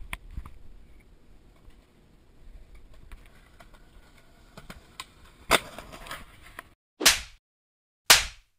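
Skateboard wheels rolling on concrete, with a loud sharp clack of the board about five and a half seconds in. After a cut, two short loud sweeps that fade downward, a second apart.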